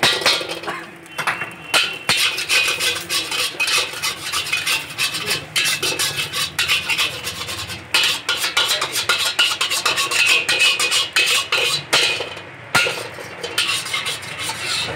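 Metal cooking utensils clattering rapidly against cookware, a dense run of quick clinks and scrapes typical of stir-frying at a fried-rice stall. There is a brief break about three-quarters of the way through.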